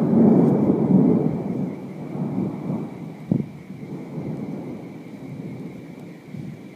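Thunder rumbling, loudest in the first second and dying away over several seconds, with a short sharp clap about three seconds in.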